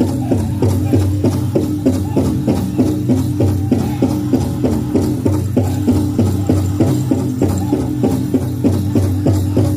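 Powwow drum group singing in chorus over a big hand drum struck in a steady, even beat: a chicken dance contest song.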